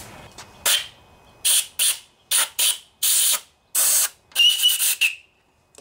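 Compressed air blown in about eight short hissing blasts into the bolt holes of a Tecumseh lawnmower engine cover, clearing out debris. The last blast, near the end, is the longest and has a thin whistle.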